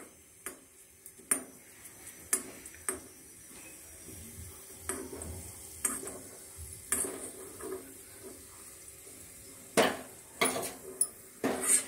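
A steel spoon scraping and clinking against a metal kadai, turning lumps of asafoetida frying in a little oil, with faint sizzling. The clinks come irregularly, about ten in all, the loudest near the end.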